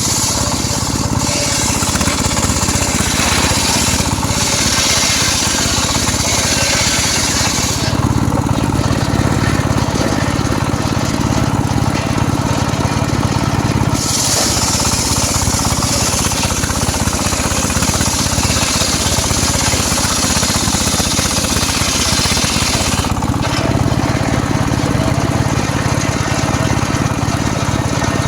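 Homemade motor-driven circular saw running steadily and ripping through teak wood. Two long cuts, each with a bright hissing rasp over the steady drone: one lasting about eight seconds at the start, another starting about halfway and lasting about nine seconds. The blade spins free between them.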